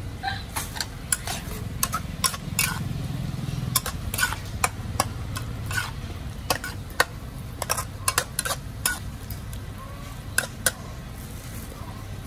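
Metal spatula scraping and tapping against a wok as beef and vegetables are stir-fried, in quick irregular strokes. A steady low hum runs underneath.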